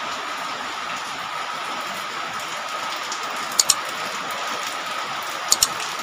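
Steady rain falling, an even hiss, with two quick pairs of sharp clicks, one a little past halfway and one near the end.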